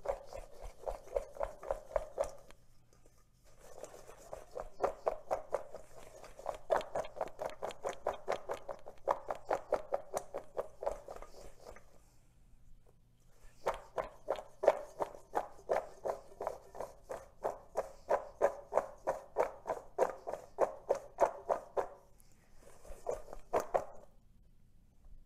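Cut sweet potato fries tossed in a stainless steel mixing bowl, knocking against the metal in quick rhythmic runs of about five a second, with a few short pauses, as they are coated in oil and a cornstarch and spice mix.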